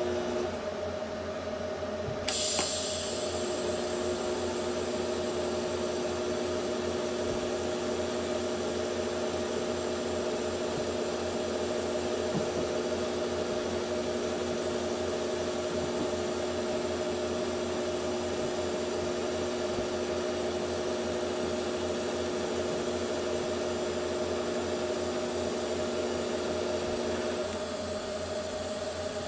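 TIG welding arc struck with a sharp hiss about two seconds in, then burning with a steady hum until it is shut off shortly before the end. A steady machine hum runs underneath.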